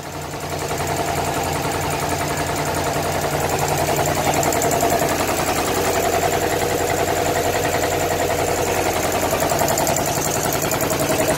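10 hp belt-driven two-cylinder air compressor and its electric motor running steadily with a fast, even pulsing from the pump. It gets a little louder over the first second or two.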